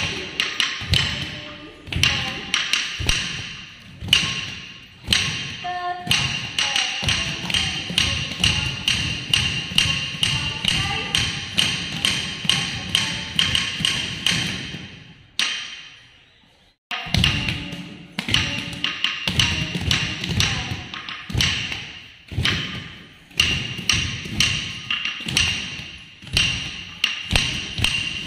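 Wooden stick (thattu kazhi) beaten on a wooden block keeping the Bharatanatyam beat, with dancers' bare feet stamping in time for tatta adavu. The strikes come several a second with a louder accent about every two seconds, stop for about a second and a half just past halfway, then resume.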